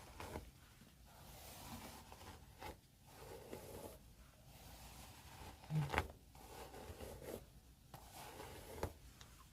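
Hairbrush being drawn through hair in slow strokes, a soft swishing that swells and fades every second or so, with a sharper click about six seconds in.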